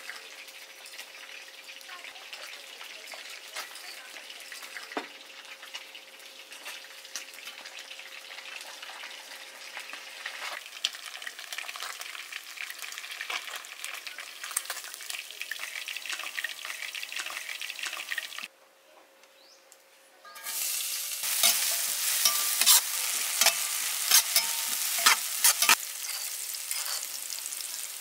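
Hot oil sizzling steadily as a whole fish fries in a wok. The sound cuts out for about two seconds, then returns louder as chopped chilli and garlic are stirred in hot oil, with repeated sharp clicks and scrapes of a spatula against the pan.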